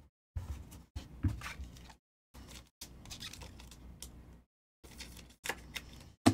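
Football trading cards being handled and shuffled by hand: soft rustling and sliding with small clicks, cutting in and out with short silent gaps, and a sharp tap near the end.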